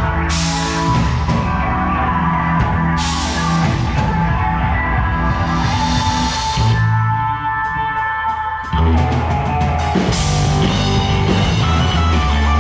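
Live rock band playing through a stage PA at a soundcheck: drum kit with cymbal crashes, keyboard, electric guitar and bass. About seven seconds in, the drums and bass drop out, leaving held chords, and the full band crashes back in near nine seconds.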